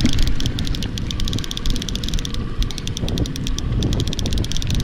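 Trolling reel's clicker clicking rapidly and unevenly while a king salmon is fought on the line, over low wind rumble on the microphone.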